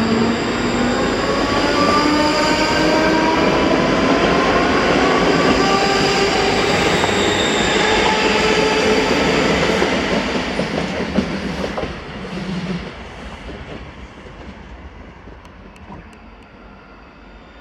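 ScotRail electric train pulling away, its motors whining in several tones that rise steadily in pitch as it accelerates, with some clicking from the wheels. About ten seconds in the sound starts to fade as the train leaves.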